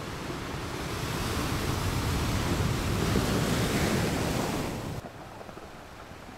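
Sea waves surging, the rush swelling for a few seconds and then cut off abruptly about five seconds in, leaving a quieter hiss.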